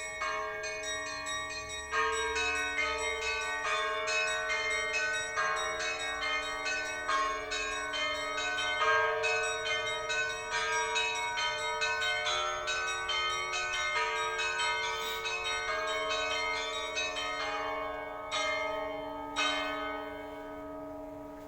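Russian Orthodox church bells being rung: several bells of different pitches are struck in quick repeated patterns over deep, long-ringing tones. The last strikes come near the end, and the bells ring on and fade.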